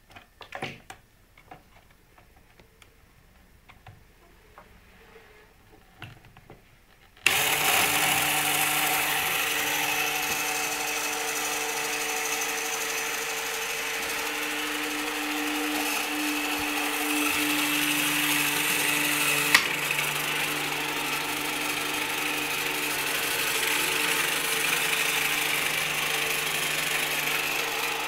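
A few light clicks, then about seven seconds in a small Lego electric motor starts suddenly and runs steadily with a steady whine and hiss, driving the boat's propeller in the water.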